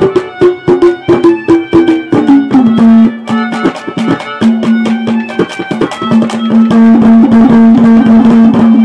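Instrumental interlude of live Haryanvi folk stage music: quick, dense drum strikes under a held melody line that steps down in pitch and, about two and a half seconds in, settles into one long low note.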